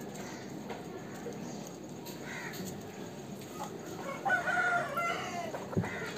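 A rooster crowing once, about four seconds in, for about a second, with a fainter call a couple of seconds before it.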